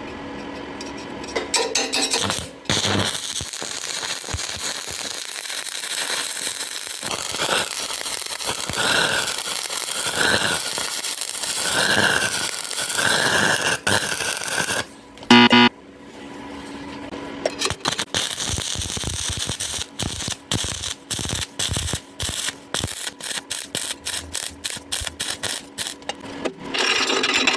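Stick (MMA) welding arc crackling and hissing on a square steel pipe, with a brief stop about halfway before the arc is struck again and runs on in rapid crackles.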